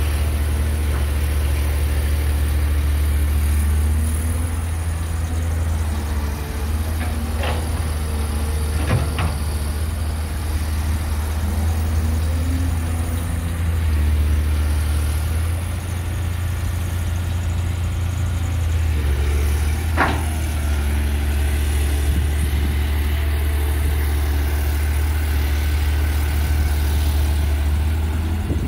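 Caterpillar 320D hydraulic excavator's diesel engine running steadily while it digs and swings, its note shifting as the load on the hydraulics changes. Three sharp knocks break in, at about 7, 9 and 20 seconds, the last the loudest.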